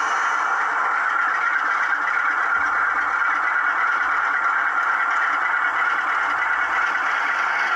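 OO gauge model diesel locomotive moving slowly along the track, its DCC sound decoder giving a steady diesel engine sound along with the running of the model.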